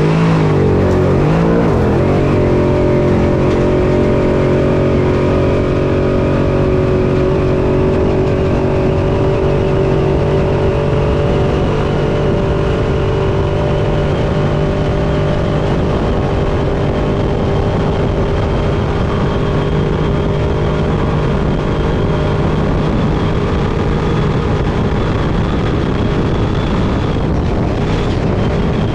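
Class 6100 desert race truck heard from inside the cab. The engine's pitch shifts through the first couple of seconds, then holds at high, steady revs, over a constant rush of wind, tyre and chassis noise.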